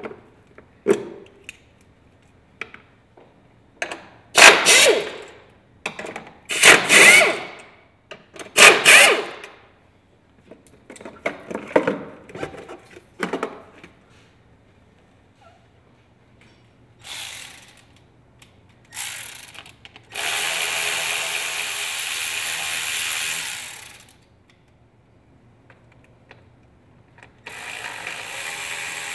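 Plastic engine-bay parts clicking, knocking and scraping as they are worked loose by hand, with three louder scrapes in the first half. Then a power tool runs steadily for about four seconds, and again briefly near the end.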